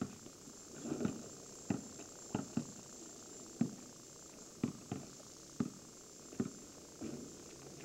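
Basketball bouncing on an asphalt driveway: separate sharp thumps at irregular spacing, roughly one every half second to second.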